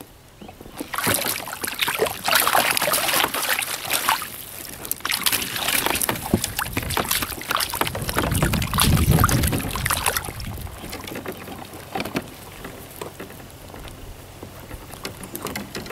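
Rainbow trout thrashing in a landing net at the water's surface, splashing and slapping the water; the splashing is busiest in the first ten seconds, with a low rumble about nine seconds in, then settles to lighter splashes.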